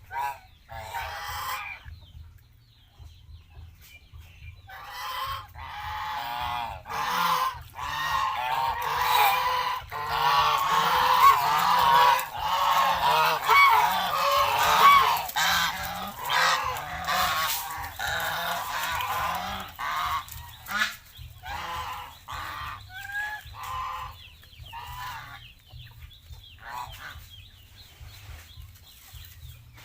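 A flock of domestic geese honking. A few calls come at first, then many birds call over one another for about fifteen seconds, thinning out to scattered honks near the end.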